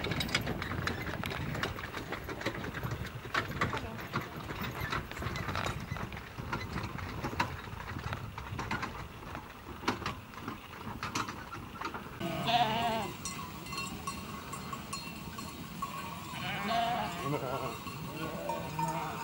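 A flock of Heidschnucken moorland sheep and goats: many small clicks and rustling for the first twelve seconds, then several bleats from about twelve seconds in.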